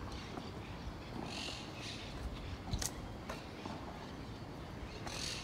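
Quiet outdoor street ambience: a low steady background with two short patches of high hiss and a few faint clicks.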